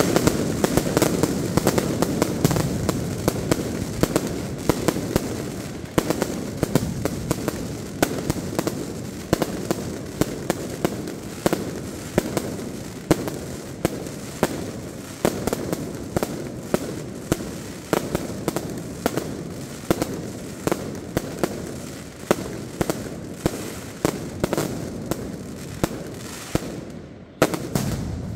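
Mascletà: a dense, continuous barrage of loud firecracker bangs, several a second, over a steady rumble of smaller crackers. There is a brief lull near the end before the bangs resume.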